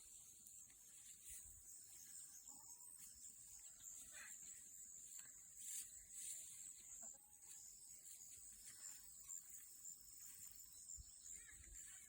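Near silence in a pasture, with a faint, steady, high-pitched insect chorus and no other clear sound.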